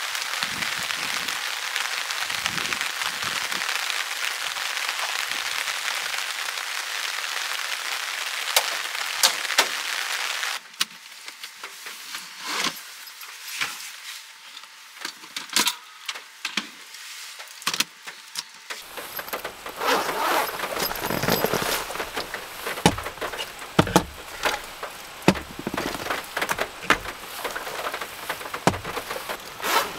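Steady rain for about the first ten seconds, then it cuts off abruptly to a quieter space inside the van. There, gear is handled and a soft storage case is opened, with sharp clicks and knocks and some rustling.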